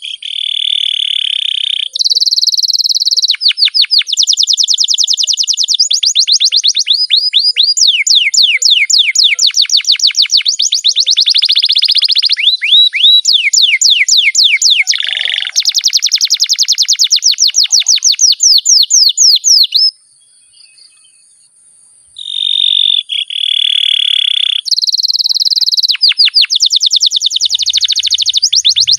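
Domestic canary singing a long rolling song: fast trains of repeated, quickly falling notes alternating with held buzzy tours, in two long bouts broken by a pause of about two seconds two-thirds of the way through.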